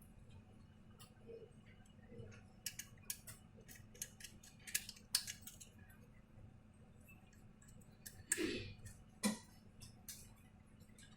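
Scattered small clicks and taps of tools and small laptop parts being handled during a repair, with a louder scraping clatter about eight seconds in and a sharp knock just after.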